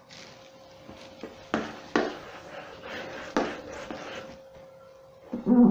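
A whiteboard duster wiping marker off the board in a series of short rubbing strokes, over a faint steady hum. A brief vocal sound near the end is the loudest moment.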